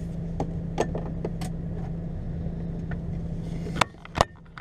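HGV lorry's diesel engine running steadily, heard from inside the cab as a low drone, with scattered light clicks and rattles. Near the end, after a couple of sharp clicks, the drone cuts off abruptly.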